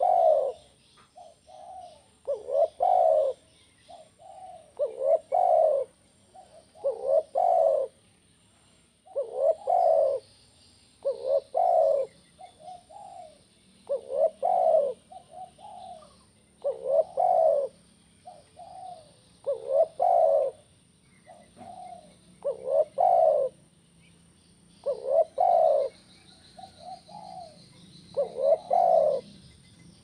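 Spotted dove (tekukur) cooing in a steady repeated rhythm, one phrase every two to two and a half seconds. Each phrase is a softer lead-in note followed by a louder coo.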